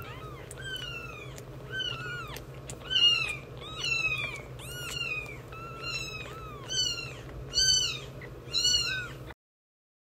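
Newborn kitten mewing in thin, high cries, about two a second, each call rising and falling, read as a kitten wanting milk. The mewing cuts off suddenly near the end.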